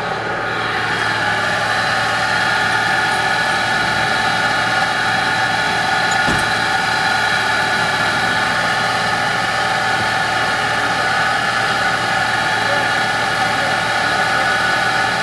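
Off-road SUV engine idling steadily.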